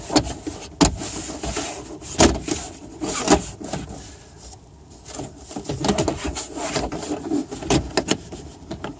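Car interior trim being pounded and pressed back into place by hand: a string of irregular knocks and thumps, the loudest about a second, two and three seconds in, with rubbing and clattering between them.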